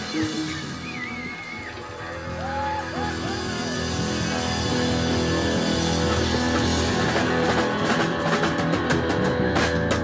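Live jam band playing: electric guitars, electric bass, keyboard and drum kit. Bending lead notes stand out in the first few seconds, and the band gets louder with busy cymbal hits in the second half.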